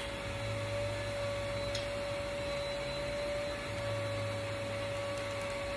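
A steady machine-like hum holding one unchanging high note, with a low buzz underneath that fades and returns.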